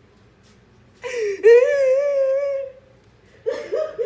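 A high-pitched voice making non-word sounds: one long wavering wail about a second in, then a short burst of choppy, laugh-like sounds near the end.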